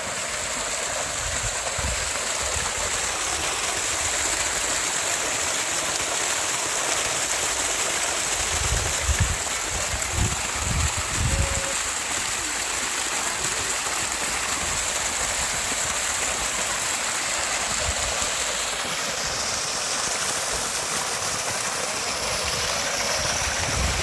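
Water gushing steadily from a borewell's outlet pipe, splashing onto a stone and running off into a field channel.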